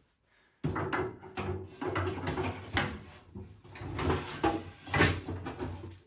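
Clear plastic fridge drawer and shelves knocking and clattering as they are handled and pushed into a dishwasher's cavity: a run of irregular knocks and scrapes starting about half a second in.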